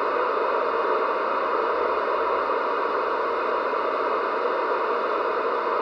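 Steady static hiss from a CB radio's speaker, with no voice on the channel.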